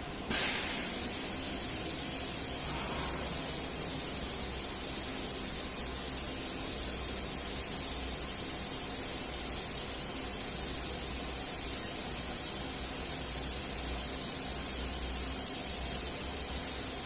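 Steady hiss that starts abruptly about a third of a second in and holds level, from the CNC router while it runs its axis homing routine.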